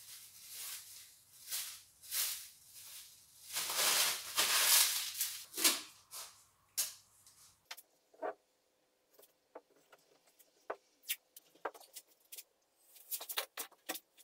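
Thin clear polyethylene film crinkling and rustling in repeated bursts as it is handled. About eight seconds in, the sound changes to scattered light clicks and crackles as a roll of stretch film is unrolled across the hull.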